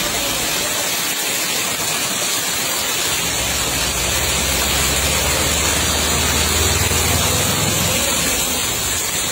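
Muddy floodwater rushing and churning steadily, with a low rumble swelling up through the middle.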